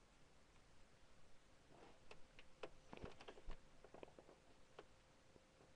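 Near silence broken by faint, scattered clicks and taps, clustered through the middle few seconds.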